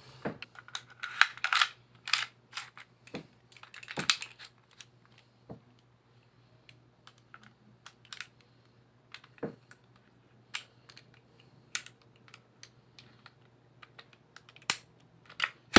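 Parts of an AW HX2001 Hi-Capa airsoft pistol being fitted back together by hand: the recoil spring, guide rod and slide go back onto the frame with irregular small clicks and clinks of metal parts.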